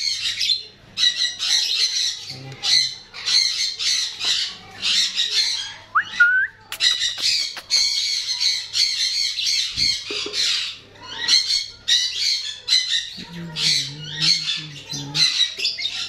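A colony of caged lovebirds squawking and chattering, many shrill calls overlapping, with brief lulls about half a second and six seconds in.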